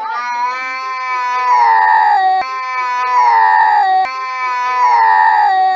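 A cat yowling in a standoff with another cat: one long wailing call that swells louder three times, each swell sinking in pitch as it ends. This is a threat yowl before a fight.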